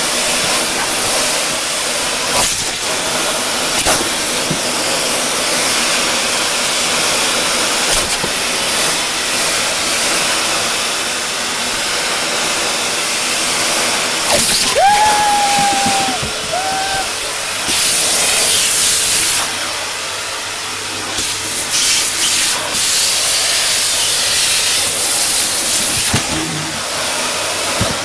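Vacuum cleaner running with a steady hissing rush while its nozzle is pushed at a Saint Bernard that bites at it. The rush grows louder and brighter several times in the second half. About halfway through come two short high whines.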